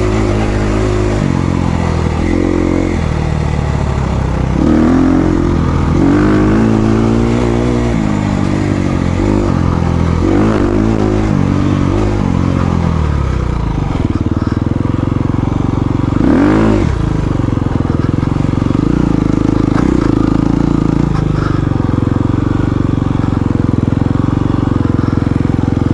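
Dirt bike engine revving hard and shifting through the gears, its pitch rising and falling again and again, then running steadier at lower revs in the second half with one quick blip of the throttle.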